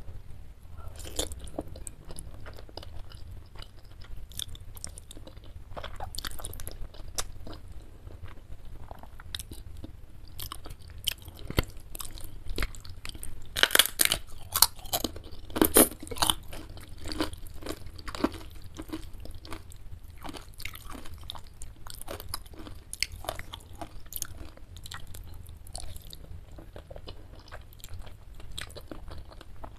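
Close-up eating sounds of chicken noodles with meatballs: irregular wet chewing and biting. From about 13 to 17 seconds in come the loudest, crisp crunching bites of a fried wonton cracker.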